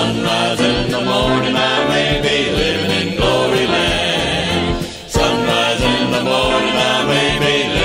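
A gospel vocal group singing the closing refrain of the song in harmony, with a short break about five seconds in.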